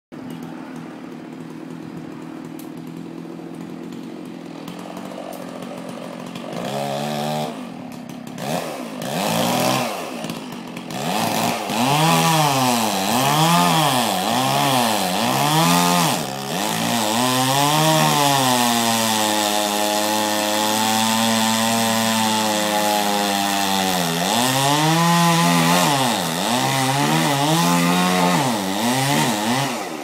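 Chainsaw idling, then revved up and down again and again as it cuts up river red gum. In the middle it holds a long run at a lower, sagging pitch under load, then goes back to quick revs.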